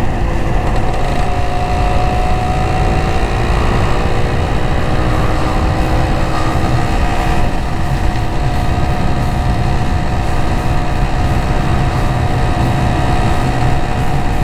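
Honda LS125R's single-cylinder four-stroke engine running at a steady cruising speed while riding, under heavy wind rumble on the microphone.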